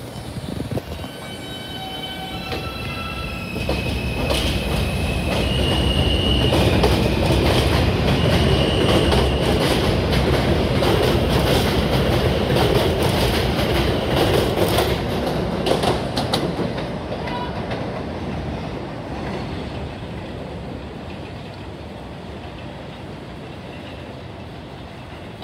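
R160A-1 subway train accelerating away: its propulsion motors whine in rising steps as it picks up speed. The rumble and clatter of its wheels over the rail joints grows loud as the cars pass and then fades away as the train leaves.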